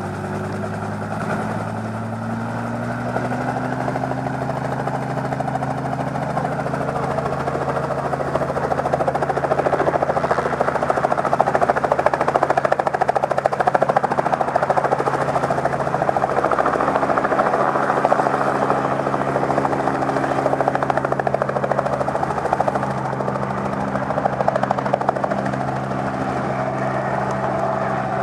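Engine of a vehicle carrying riders, pitch rising over the first few seconds as it speeds up, then running steadily, with a rushing noise that grows louder through the middle.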